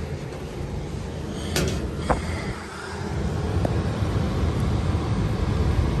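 Rheem furnace blower running, with air rushing out of the opened evaporator coil cabinet: a steady low rumble with gusty wind noise on the microphone. Two short clicks sound about one and a half and two seconds in.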